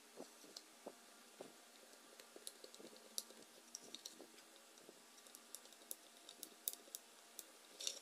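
Faint, scattered small clicks and taps of wood on wood as a dowel axle is pushed through a carved wooden toy car's body and wooden wheels are fitted onto its ends; the clicks come more often in the second half.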